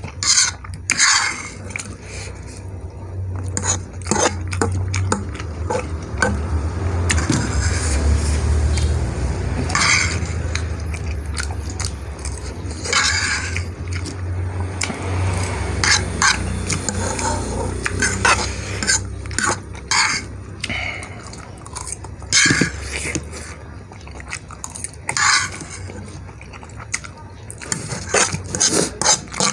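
A metal fork clinking and scraping against a bowl of noodles, over and over at irregular intervals, mixed with close-up chewing.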